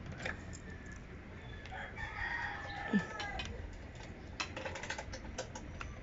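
A rooster crows once, starting about one and a half seconds in and lasting under two seconds, followed by a few light clicks near the end.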